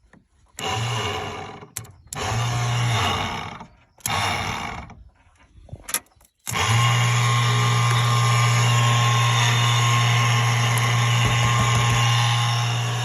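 Car's ABS hydraulic pump motor running with a steady hum, stopping and starting in short runs with a few sharp clicks, then running on without a break from about halfway. The ABS module is stuck on and keeps driving the pump, and cutting the power has not stopped it.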